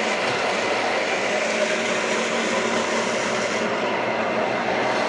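Hand-held immersion blender running steadily in a tall beaker, puréeing baked eggplant with walnuts, garlic and vinegar into a cream while olive oil is drizzled in.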